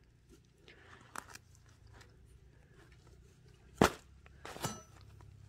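Knife cutting open a ripe papaya: faint scrapes and clicks, with one sharp knock a little before four seconds in and a smaller one soon after.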